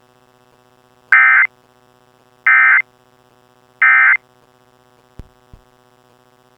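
Emergency Alert System end-of-message code: three short, identical bursts of buzzy, screeching data tones about 1.3 seconds apart, loud enough to clip. They mark the end of the alert. A faint steady hum lies underneath, with two faint clicks a few seconds in.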